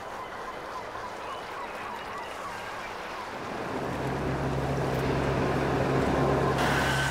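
Soft sea ambience, then a motorboat's engine drone fades in about halfway as a steady low hum. A brighter hiss of water joins near the end.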